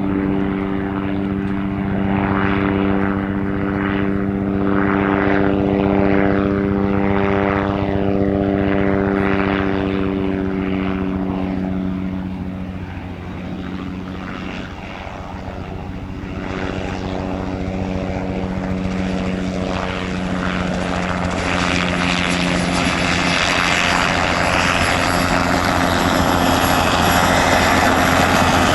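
Light propeller aircraft engine running with a steady, even note that fades about halfway through. Then a second aircraft grows louder toward the end, with a thin high whine coming in over it.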